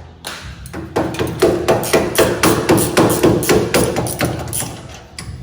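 Rapid hammer blows, about five a second, starting about a second in and stopping near the end.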